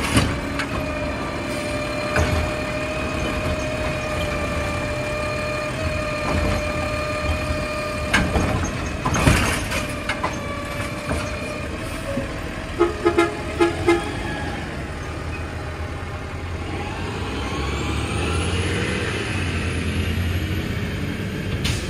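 Garbage truck, an automated side-loader, idling with a steady whine and a couple of sharp clunks. Four quick short toots follow about halfway through, then the engine rises as the truck pulls away.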